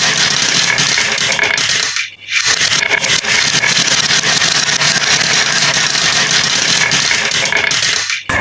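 Toy vehicles rolling and rattling down a plastic track, a continuous scraping rattle that drops out briefly about two seconds in and again near the end.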